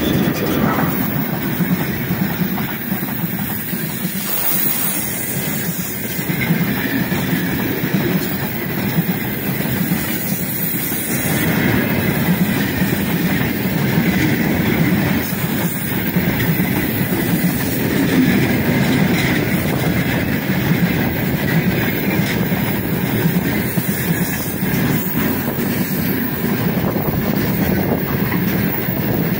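A long freight train of open-top gondola wagons passes close by at speed, its wheels on the rails making a steady rumble with a rapid clatter. The tail of the 3ES5K electric locomotive goes by at the start, and then the wagons follow.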